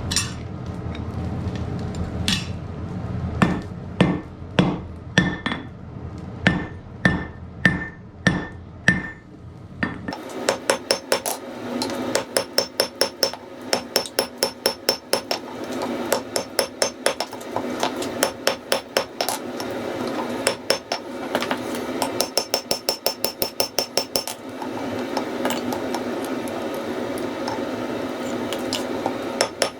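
Hammer blows on iron over an anvil as the wrought iron is forged. First, spaced ringing strikes about twice a second. Then, from about ten seconds in, quick runs of strikes, several a second, with short pauses, over a steady rushing noise.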